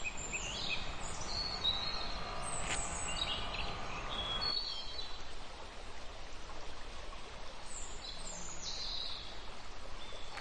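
Birds chirping and whistling several times over steady outdoor background noise.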